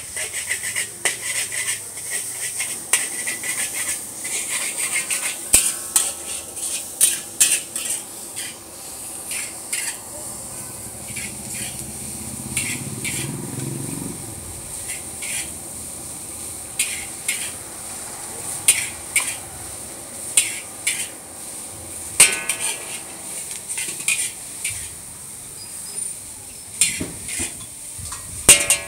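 Metal spatula clanking and scraping against a large wok as noodles are stir-fried and tossed over a high flame, in quick irregular strikes over a steady sizzling hiss.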